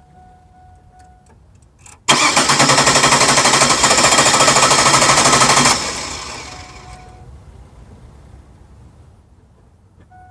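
A vehicle engine cranked by its starter motor for about three and a half seconds without catching, then winding down: a no-start. A steady high tone plays for the first second or so.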